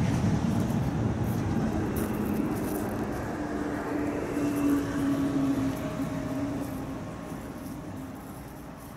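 A road vehicle passing, loudest at first and fading away, with a steady engine hum in the middle.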